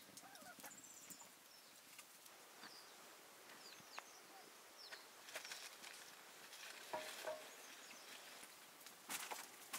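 Near silence with faint, scattered short high-pitched animal calls and a few light clicks, with a slightly louder call about seven seconds in.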